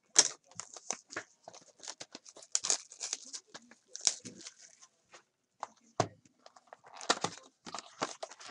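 Trading cards and pack wrappers handled close up: a busy run of short rustles, flicks and crinkles, with a sharp snap just after the start and another about six seconds in.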